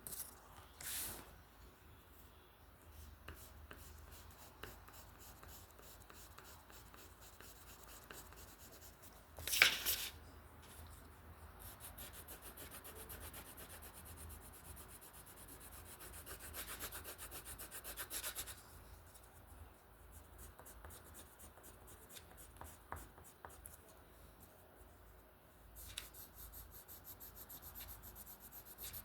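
A drawing tool scratching and rubbing across paper in runs of quick, closely spaced strokes, with a louder brief rustle about ten seconds in.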